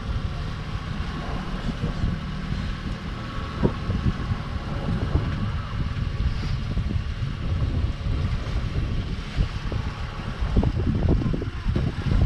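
Glass-bottom boat's engine running steadily under a low rumble of wind buffeting the microphone, with irregular gusts.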